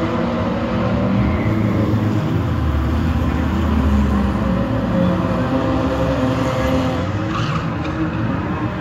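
Drift car engines running loud and continuous, their pitch rising and falling as they rev.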